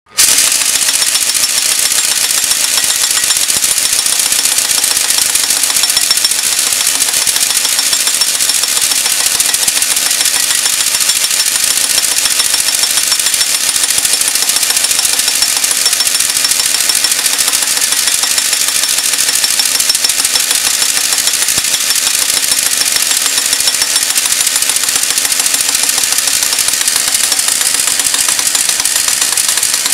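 Pneumatic impact wrench hammering steadily as it turns a shaft lock cap through a socket: a loud, continuous rapid rattle of blows.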